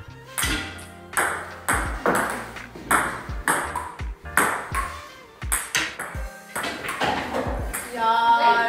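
Table tennis rally: a ball clicking back and forth off the paddles and the table top, about two hits a second. A voice comes in near the end.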